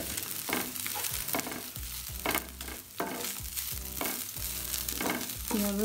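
Wooden spatula stirring and scraping cooked, finely ground beef and fried onion around a hot frying pan. Repeated scraping strokes, roughly two a second, sound over a steady faint frying hiss.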